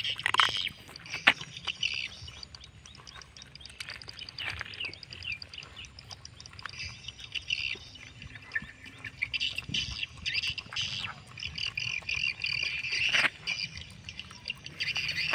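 A dog eating rice from a plastic plate, chewing with small clicks and smacks, while birds chirp and call throughout.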